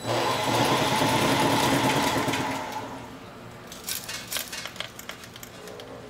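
A roughly 60-year-old wiring-harness taping machine running at full speed, its rotating tape head wrapping tape around the harness as the geared conveyor belt pulls it through: a steady mechanical whir that starts suddenly, dies down about halfway through, and gives way to scattered clicks and rattles.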